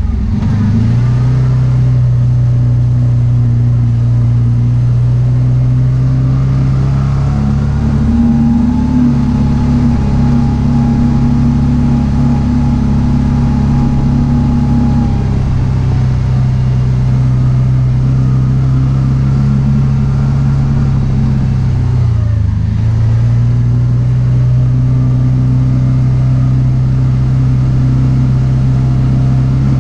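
Kawasaki Teryx4 side-by-side's V-twin engine running steadily at trail speed, heard from inside the cab. The pitch dips briefly twice as the throttle is eased, just after the start and about two-thirds through, then picks back up.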